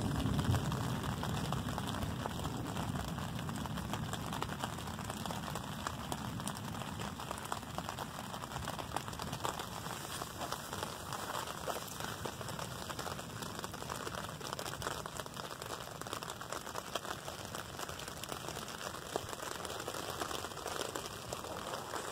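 Heavy rain pattering steadily on a tarp shelter, a dense hiss of fine drop ticks. A low rumble fades away over the first couple of seconds.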